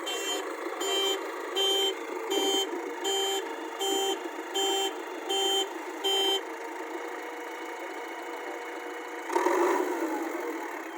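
JCB backhoe loader's reversing alarm beeping about once every three quarters of a second, stopping about six seconds in, over the machine's engine running steadily. A short, louder surge of noise comes near the end.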